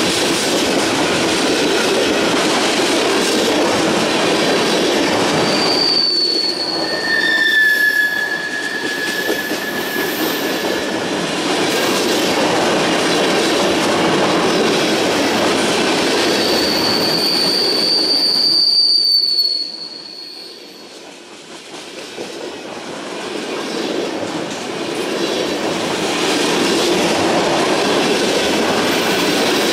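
Empty ethanol tank cars of a freight train rolling past with a steady rumble of steel wheels on the rails. High wheel squeals sound about six seconds in, and again for a few seconds from about sixteen seconds. The noise drops off briefly around twenty seconds, then builds back.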